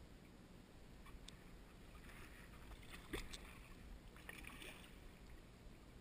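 Faint kayak paddle strokes in calm water: soft splashes and drips from the blade, with one sharp tap about three seconds in.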